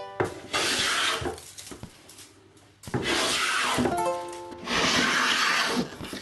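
Hand plane shaving down the high spots of a cupped pallet-wood board: three long strokes of about a second each, the first near the start, then about 3 and 5 seconds in. Background music with a few plucked notes plays under them.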